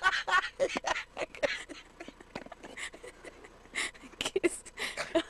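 A man's uncontrollable laughing fit, breathless wheezing laughter and gasps in short irregular bursts, stronger at the start and again near the end.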